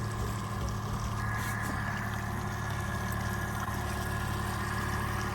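Boat motor running steadily with an even hum.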